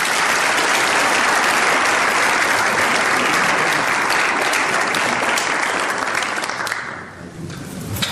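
Congregation applauding steadily, the clapping dying away about seven seconds in.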